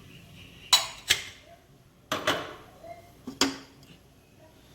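Kitchen utensils clinking: three pairs of sharp, ringing clinks about a second apart.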